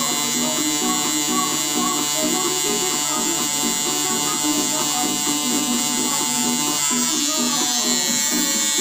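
Tattoo machine buzzing steadily as its needle works black ink into EVA foam practice skin, with music playing in the background.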